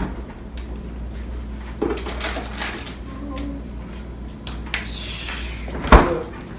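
Refrigerator door opened, with a few light knocks and rustles while it stands open, then shut with a loud thud near the end.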